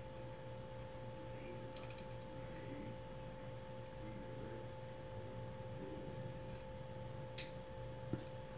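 Faint clicks of a hand ratchet turning the tailgate's Torx bolt, a short run about two seconds in and single clicks near the end, over a steady faint two-tone hum.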